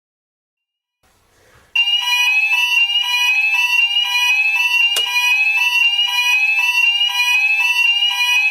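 Wall fire alarm sounder, set off for a test, sounding a loud, steady-level warble. The rising sweep tone repeats a little more than once a second, starting about two seconds in. There is one sharp click partway through.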